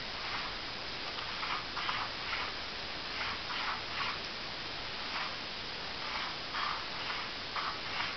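A pen scratching across a sheet of card in a dozen or so short strokes, in loose clusters, over a steady hiss.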